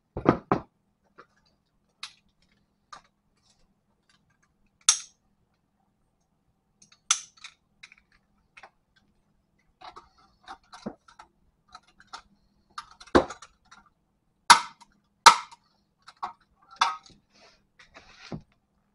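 Scattered metallic clinks and knocks of hand tools and front suspension parts while the ball joint and tie rod are refitted. The sharpest knocks come in a cluster in the second half.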